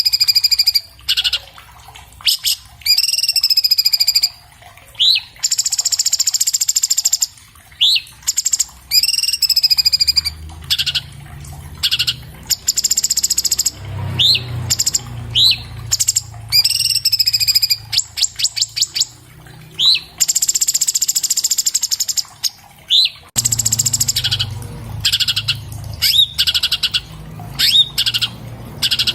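Orange-bellied leafbird singing a loud, fast, varied song: upslurred whistled notes alternate with harsh, buzzy chatters, broken by short pauses. A little past the middle comes a quick run of rapid clicks.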